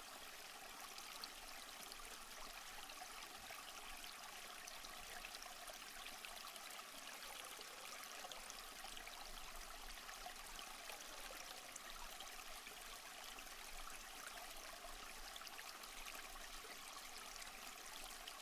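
Faint, steady hiss sprinkled with fine crackles: a relaxing nature ambience bed, either a campfire crackling or running water.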